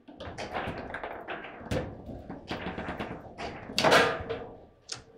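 Table football in play: a rapid, irregular run of hard knocks and clacks as the ball is struck by the rod figures and the rods bang against the table, with the loudest hit about four seconds in.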